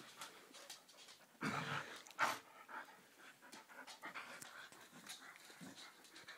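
Samoyed panting hard while tugging on a toy, with two louder short noises from the dog about a second and a half and two seconds in.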